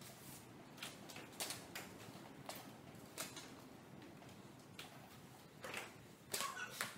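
Faint scattered clicks and knocks of a unicycle and shoes on a concrete floor during attempts to mount it, echoing slightly in a metal building, a few coming close together near the end. A short high whine also sounds near the end.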